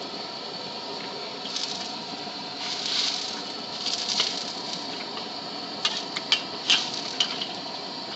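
Cooking at a street noodle stall: a steady hiss, two short louder swells, then a quick run of sharp clinks of utensils on metal about six to seven seconds in.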